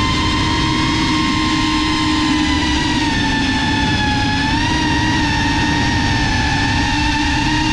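GEPRC CineLog 35 FPV quadcopter's motors and propellers whining steadily in cruise, over a low rush of air. The pitch sags slightly a few seconds in, lifts briefly near the middle, then holds.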